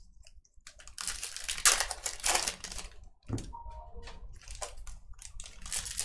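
Foil trading-card pack wrappers crinkling and baseball cards being handled, in a few bursts of rustling with small clicks in between.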